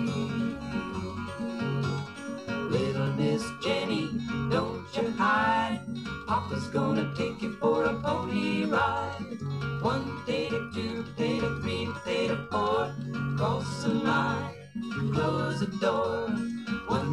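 Folk song playing from a vinyl single on a turntable: strummed acoustic guitars with group singing.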